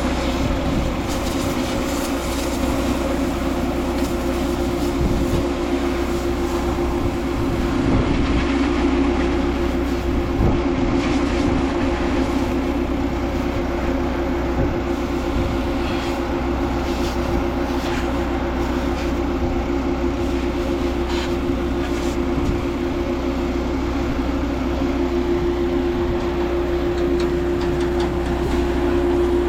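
A motor running steadily with a constant hum and low drone, with scattered light clicks and rattles over it.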